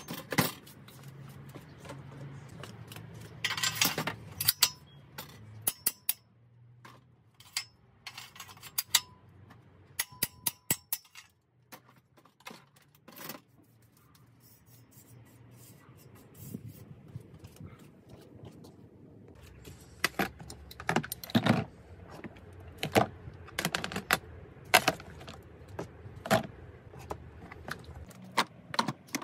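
Small metal bicycle parts and tools clinking and clattering in scattered runs of sharp clicks.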